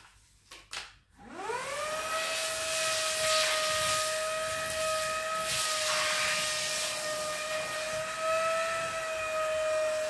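Lacidoll cordless handheld vacuum cleaner switched on after a couple of clicks about a second in: the motor spins up with a quickly rising whine, then runs steadily with a high whine over the rush of air.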